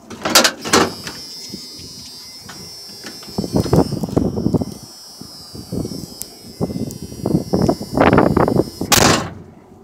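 A pickup truck's driver door is opened with a couple of knocks. A steady high door-open warning tone sounds while it stands open, and wind gusts buffet the microphone in rough bursts. Near the end the door slams shut with a loud thump, and the tone stops just before it.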